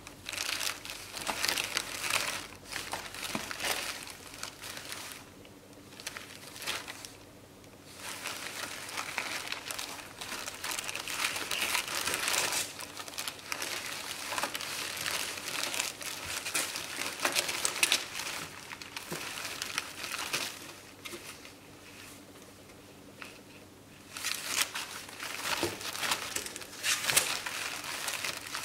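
Plastic bubble wrap crinkling and rustling in irregular bursts as a ferret burrows and wriggles inside it, with two quieter lulls, about five seconds in and again around twenty seconds in.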